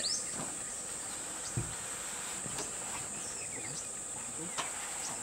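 Steady high-pitched insect chorus, crickets or cicadas, with a short bird chirp right at the start.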